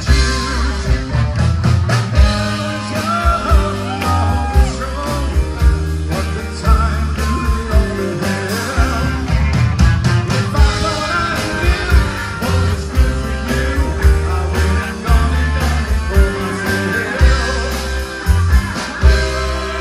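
Live rock band playing a song with a steady drum beat, bass and electric guitar, while a group of voices sings along.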